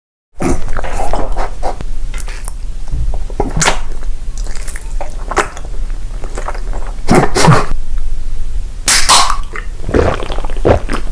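Close-miked mukbang eating sounds: irregular bites, smacks and chewing noises over a low steady hum.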